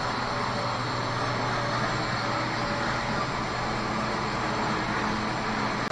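CNC machine running, a steady mechanical hum with a broad hiss and a few constant low tones.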